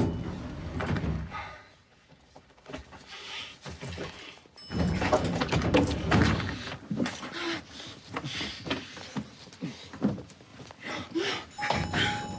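Two people kissing passionately, with breaths and bodies thudding against the wall of an elevator car. A steady tone comes in near the end.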